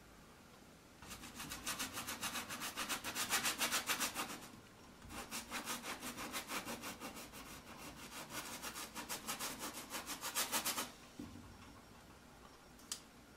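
Artist's paintbrush scrubbing paint onto a canvas in quick, even back-and-forth strokes: two bouts of several seconds with a short pause between. A single sharp click near the end.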